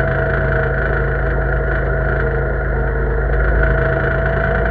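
Engine of an old tractor running steadily close to the microphone, heard from the driver's seat, with an even low note and no change in speed.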